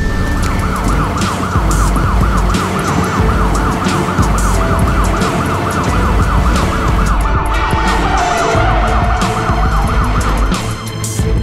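Police car siren wailing rapidly up and down, about four sweeps a second, over background music. The siren cuts off near the end.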